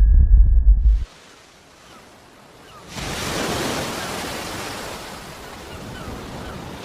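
Wind rushing as a steady, even hiss that swells suddenly about three seconds in and then slowly eases off. It opens with the end of a deep rumble that cuts off after about a second.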